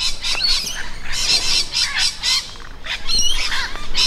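Several wild birds calling at once: a busy mix of rapid scratchy calls and short sliding whistled notes, high in pitch.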